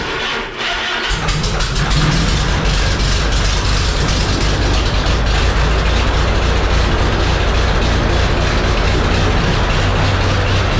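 Overhauled Lycoming O-320 four-cylinder, air-cooled aircraft engine starting: it comes in suddenly, catches about a second in, then runs loud and steady.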